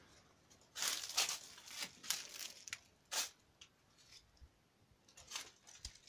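Rustling and scraping noises in a string of short bursts, loudest in the first half, with a few faint scattered rustles near the end.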